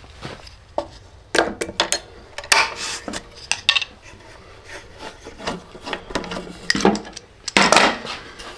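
Locking pliers being fitted and clamped onto the head of a steel screw set in a wooden board. Short spells of metal clacking, scraping and rubbing come several times, with pauses between them.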